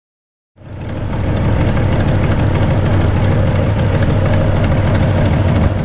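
Datsun L28 inline-six engine idling, fully warmed up, steady and even, holding a healthy 17–18 inches of manifold vacuum. The sound fades in about half a second in and then holds steady.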